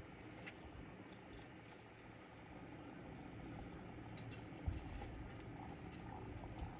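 Budgie scratching and pecking about: faint scattered clicks and scrabbling, with one louder thump near the middle.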